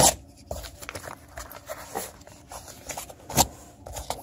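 Handling noise of a soft body armor vest being worked open with a knife: scattered rustling, scraping and small clicks, with a sharp knock at the start and another a little over three seconds in.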